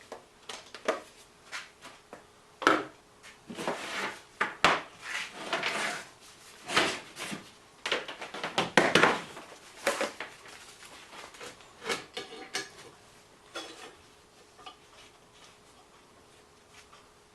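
Metal pieces and tools being handled and fitted together before welding: irregular clanks, knocks and scrapes, busiest in the middle and thinning to a few light taps near the end.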